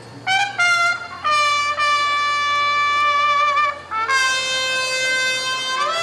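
A solo wind instrument plays two short notes, then a long held note with a slight waver, then a second long note a little lower, sliding up into a higher note near the end.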